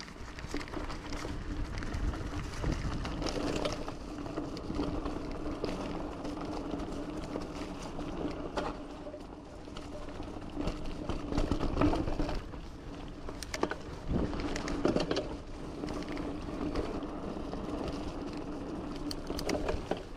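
Giant Fathom 2 hardtail mountain bike descending a dirt trail: tyres rolling over dirt and roots, with scattered knocks and rattles as the bike takes bumps. Under it runs a steady buzz from the rear hub freewheeling while coasting, and wind rumbles on the microphone.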